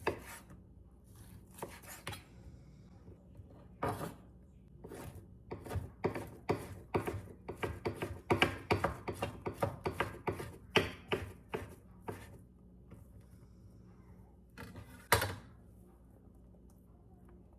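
Knife cutting a steamed Vietnamese pork roll on a cutting board: a run of sharp chops, quickening to two or three a second in the middle, then one last loud chop near the end.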